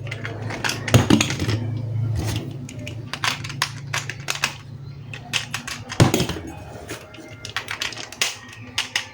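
Rapid, irregular clicks and rattles of plastic toy parts being handled, with two louder knocks about a second in and about six seconds in. A steady low hum runs under the first half and then fades.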